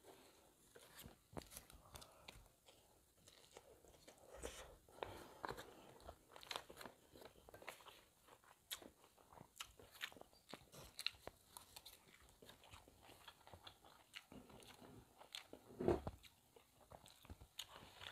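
A person chewing a mouthful of lotek, vegetables in peanut sauce with crackers, close to the microphone: many short crisp crunches and bites, with one louder thump near the end.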